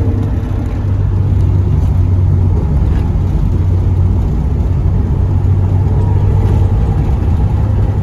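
1992 Mazda Miata's 1.6-litre four-cylinder engine and road noise, a steady hum while driving. No knocking comes from the freshly replaced rear differential.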